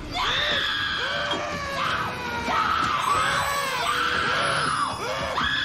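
A woman screaming in terror: a rapid string of short, high-pitched screams, each under a second long.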